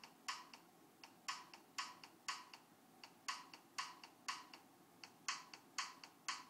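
Software drum machine playing back a programmed pattern, heard faintly through speakers: short, crisp, high ticking hits, like a hi-hat, at roughly two a second in a repeating rhythm with short gaps, with no bass drum.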